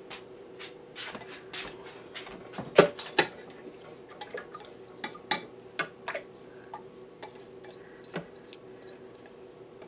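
Kitchenware clinking and tapping as the last of the sugar is scraped from a container into a Ninja blender jar: scattered sharp taps, the loudest about three seconds in.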